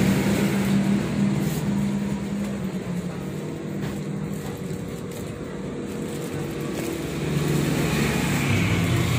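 Motor vehicle engines running as a steady low hum, easing off in the middle and swelling again about seven seconds in.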